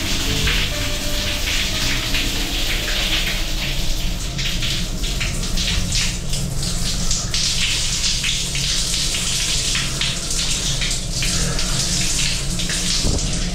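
Rainfall shower head running, water pouring down in a steady hiss and splashing over a person's head and body.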